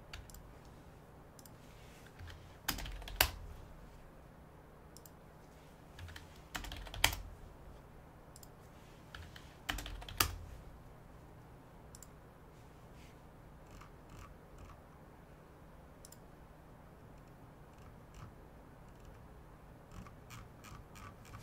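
Typing and clicks on a computer keyboard, in three short flurries about three, seven and ten seconds in, with scattered lighter taps between, over a faint steady hum.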